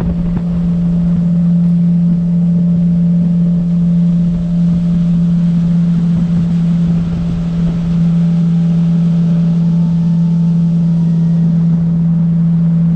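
Boat's outboard motor running at a steady cruising speed, one even unchanging drone with wind and water noise beneath it.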